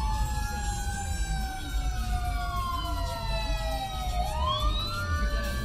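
Fire truck siren wailing, its pitch falling slowly and then sweeping back up about four seconds in, over a low rumble.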